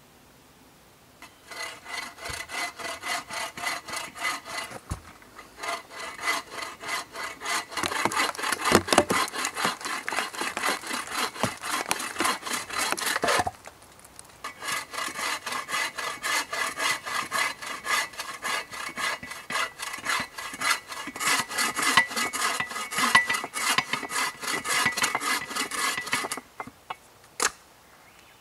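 Bow saw cutting through a thin log: steady back-and-forth rasping strokes in two long runs with a short pause between them. A couple of sharp knocks near the end.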